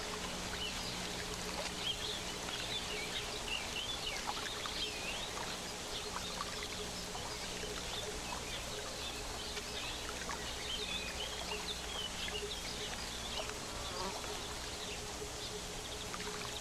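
Outdoor ambience of small birds chirping and twittering in quick, irregular calls over a steady hiss, with a faint steady hum underneath.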